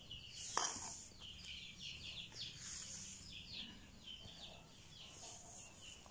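Small birds chirping faintly and repeatedly in short falling chirps, with a single knock about half a second in.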